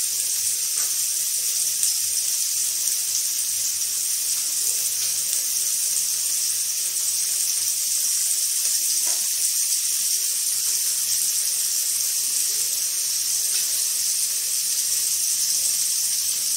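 Chopped tomatoes and onions sizzling in oil in a kadai: a steady high hiss.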